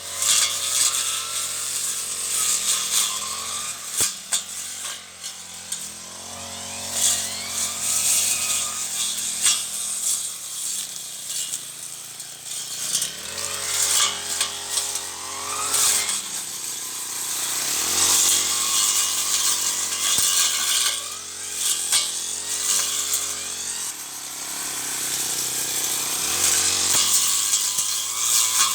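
Two-stroke brush cutter running as it cuts weeds, its engine pitch rising and falling repeatedly as the throttle is opened and eased, with crackling and sharp ticks from the cutting head striking grass and stems.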